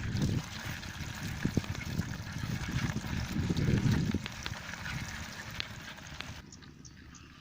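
Water trickling and sloshing, with a few low knocks, stopping abruptly near the end.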